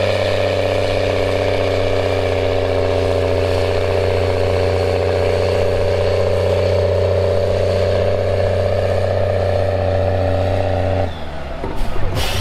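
Case IH Puma 210's six-cylinder diesel engine running hard at steady revs under full load while pulling a weight sled. About eleven seconds in the engine sound cuts off abruptly, followed by a couple of sharp clicks.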